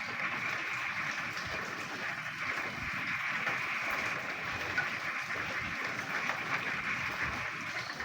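Many frogs croaking at once in a dense, steady chorus, with rain falling.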